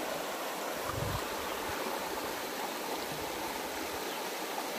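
Small stream running steadily over stones, an even rush of water, with a soft low thump about a second in.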